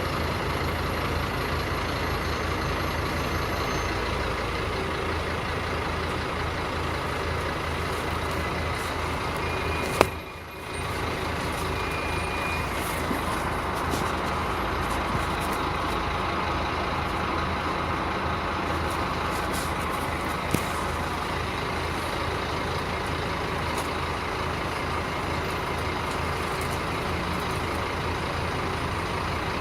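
Scania K310 city bus running, a steady engine and road noise. About ten seconds in a sharp click is followed by a brief drop in the noise before it picks up again.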